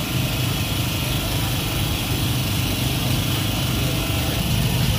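A small engine running steadily, a constant low hum with no change in pitch.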